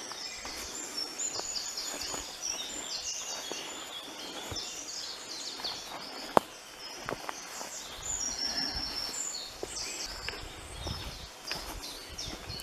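Woodland birds singing, a dense run of short high chirps and trills. Footsteps on the path and one sharp crack about six seconds in.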